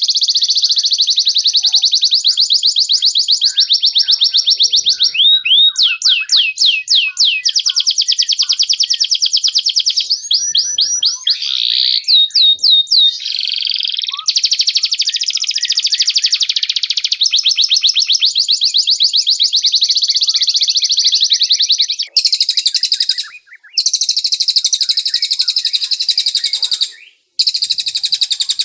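Domestic canary singing a long, continuous song of fast trills: runs of rapidly repeated high notes that change pattern every few seconds, with a few brief pauses near the end.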